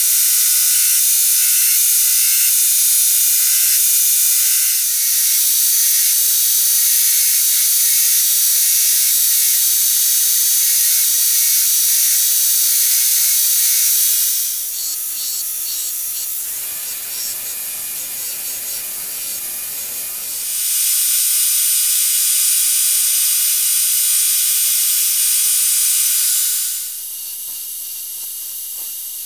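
Belt grinder running with an abrasive belt, grinding a dark handle block to shape: a loud, steady high hiss with whining tones. It drops quieter for several seconds about halfway through, and again near the end.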